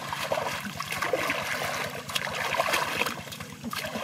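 Shallow muddy water running and splashing unevenly as hands grope through it under the surface.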